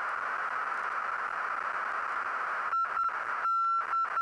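Steady radio hiss in the aircraft's headset audio. About two and a half seconds in, a single-pitched Morse-code ident tone from a navigation beacon starts keying: two short dots, then a longer dash followed by short dots, as the navaid is identified.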